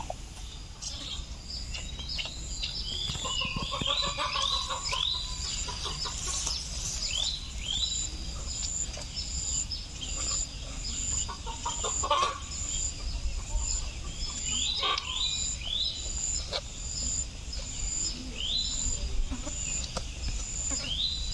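Birds calling in repeated short chirps that drop in pitch, with a lower call about four seconds in, over a regular high-pitched pulsing insect call that repeats about once or twice a second.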